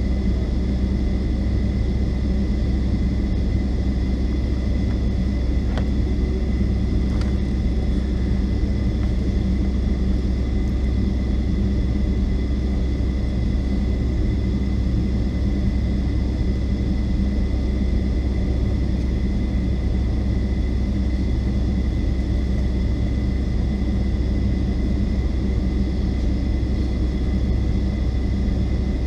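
Steady low rumble and a thin steady whine of a Boeing 757-200's Rolls-Royce RB211 jet engines idling, heard from inside the passenger cabin while the aircraft is held stationary before takeoff. Two faint clicks come about six and seven seconds in.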